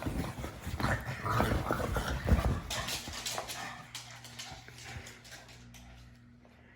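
A pug making its noises: a run of loud, rough, breathy sounds for the first few seconds, then scattered fainter clicks that die away.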